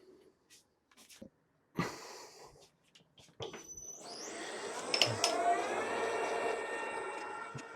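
A few clicks and a knock of tools being handled, then about three and a half seconds in the Deckel FP2 milling machine's spindle starts, its whine rising in pitch for about two seconds and then running steady.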